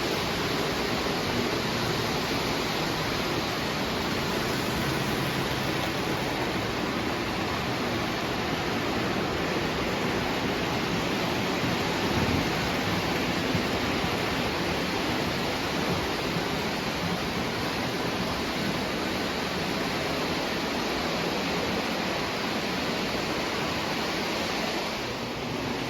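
O gauge toy trains running on the layout's three-rail track, a steady rolling rumble with no breaks.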